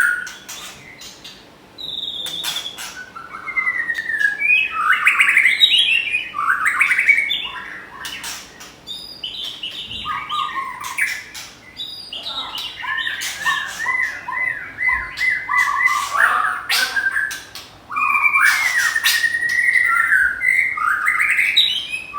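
White-rumped shamas singing in a song contest: loud, varied whistled phrases and rapid trills traded back and forth, mixed with sharp clicking notes, with short pauses between bursts.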